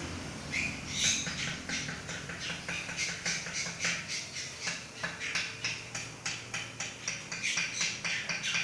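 Caged songbirds giving a quick run of short, sharp chirps, about three or four a second.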